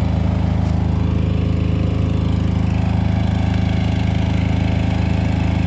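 Bar bending machine running steadily, a constant low drone like a small engine idling.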